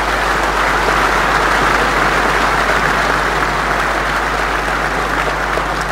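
A large audience in a big hall applauding, a dense even clapping that swells a little at first and eases off toward the end.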